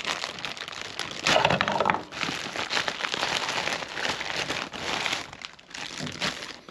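Plastic zip-top bag of powder crinkling as it is picked up and handled, loudest from about a second in.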